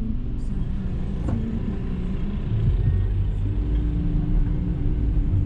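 Road vehicle engine running at a standstill, then pulling away from the stop. A low rumble grows louder about three seconds in, with a brief click about a second in.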